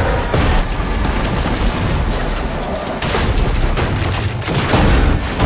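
Steam locomotive crash: a dense, continuous rumble and crashing of wreckage, with repeated heavy impacts and booms.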